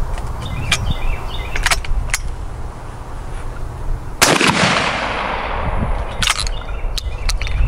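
A single shot from a 12-gauge Darne-type sliding-breech side-by-side shotgun about four seconds in, with a long echo trailing away. Sharp metallic clicks of the breech action come before the shot and again about two seconds after it.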